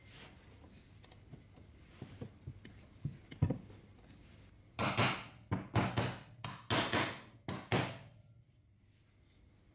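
Plastic chainsaw housing being handled and pressed together on a wooden workbench: a few light knocks, then a quick run of about seven louder thumps in the second half.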